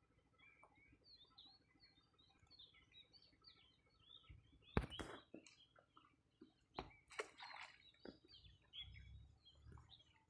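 Faint birdsong: many short chirping and twittering notes from small birds. A few sharp clicks break in, the loudest about five seconds in.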